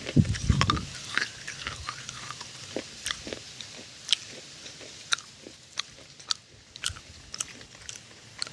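Close-miked biting and chewing of something crunchy: sharp crunches and crackles scattered throughout, with denser, heavier chewing in the first second.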